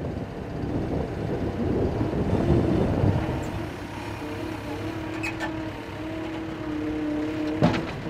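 Skid-steer loader's engine running with its hydraulic attachment at work, a rough noise easing into a steady hum, with one sharp metallic knock near the end.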